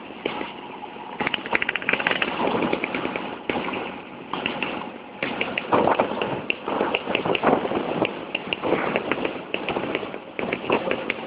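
Rushing wind and irregular crackling and knocking on the microphone of a camera carried on a moving scooter, with scooter engines running underneath.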